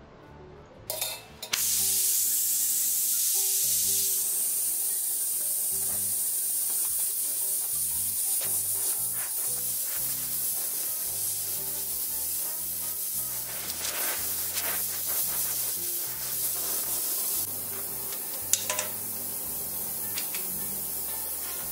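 Oxy-acetylene torch flame hissing steadily, starting loud about a second and a half in and easing a little a few seconds before the end. A few light metal clicks come near the end.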